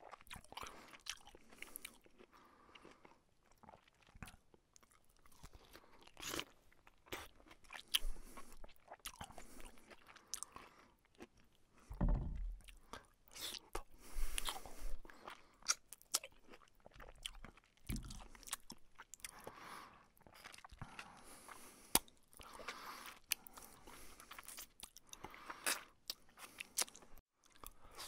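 Close-up eating sounds: chewing and crunching mouthfuls of rice and fried fish, with soft clicks of fingers mixing rice on the plate. Twice, about 12 and 18 seconds in, there is a louder dull thump.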